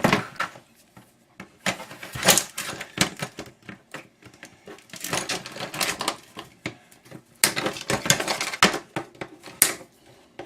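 Irregular metallic clicks, taps and knocks of hand tools working on an electric fan's motor housing as it is pried and taken apart.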